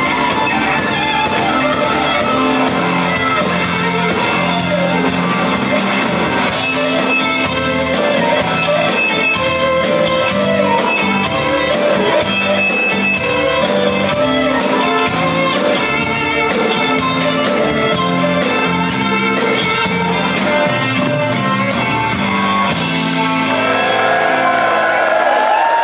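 Blues-rock band playing live in a large hall, with an electric guitar leading in bent, wavering notes over the band. Near the end a long note is held with vibrato.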